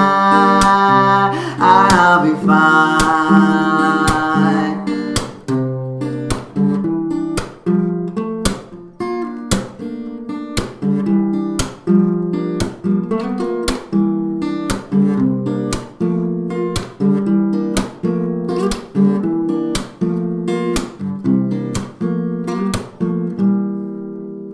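Music: the instrumental close of a song, chords strummed on an acoustic guitar in a steady rhythm, with a held sung note over the first few seconds. The strumming grows quieter toward the end.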